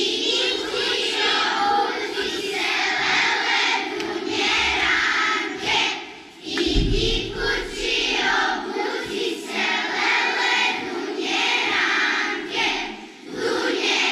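A large children's choir singing together, the phrases breaking briefly for breath about halfway through and again near the end. A low thump sounds about seven seconds in.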